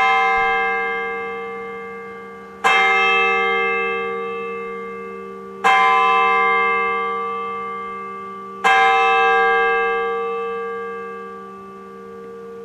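A single church bell tolling, struck on the same note about every three seconds, three strikes in all, each ringing on and slowly fading before the next.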